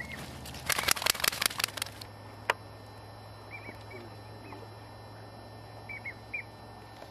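A quick run of sharp clicks and knocks about a second in. Then short, high, whistled duck calls come in twos and threes over a steady low hum.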